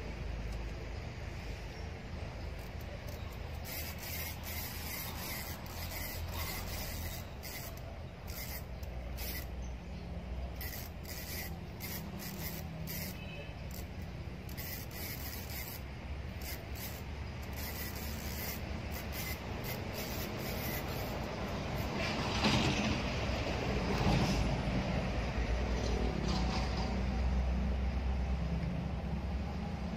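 A spinning reel is wound in while a fish is played to the bank, giving irregular short clicks and scratches. Around three-quarters of the way through there is a louder spell of rustling and handling as the catch is landed. A steady low rumble lies under it all.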